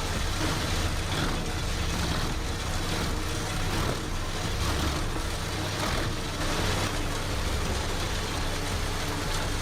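Heavy wood-processing machine's engine running steadily, with several short, harsher surges as wood is fed through and cut or shredded.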